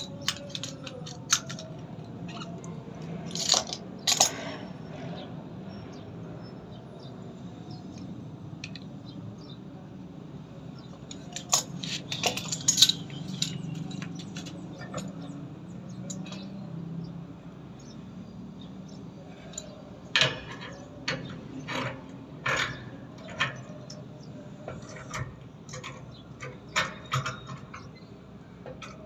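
Hand tools and small hard parts being handled during water-tank repair work: scattered light clinks and taps in clusters near the start, around the middle and through the last third, over a steady low hum.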